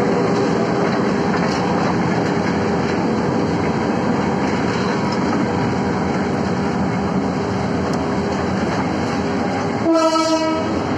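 Steady rumbling noise with a light clatter throughout, and about ten seconds in a single-pitched horn blast lasting under a second as a headlight approaches.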